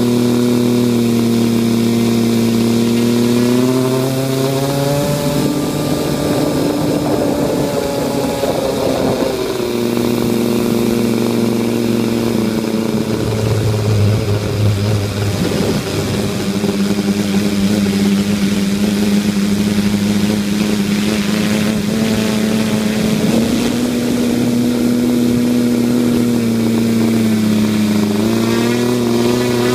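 Homemade R/C tricopter's electric motors and propellers running close to the onboard camera, giving a steady pitched hum. The pitch rises about four seconds in, drops again, and shifts up and down several more times as the throttle changes.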